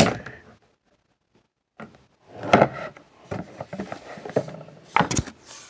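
Knocks and rustling of things being handled on a wooden table, with a sharp thump at the start and another about five seconds in.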